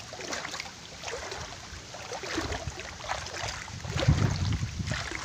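Legs wading through shin-deep stream water: irregular splashing and sloshing with each step, loudest about four seconds in.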